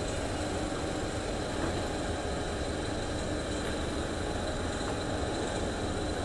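Singapore MRT train carriage interior: the steady rumble and hum of the train running along the track.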